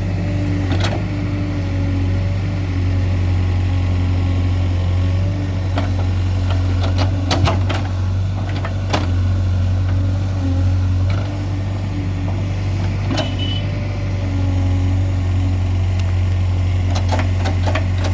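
Heavy diesel engine running steadily with a low, even hum, with a scattering of sharp knocks and clanks over it.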